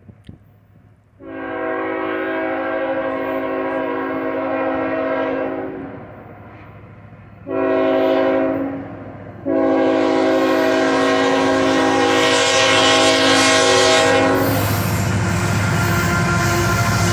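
Freight locomotive's multi-chime air horn sounding a long blast, a short one and another long one, the pitch dropping during the short blast as it passes. Then the horn stops and the train goes by close, with steady loud engine and wheel noise.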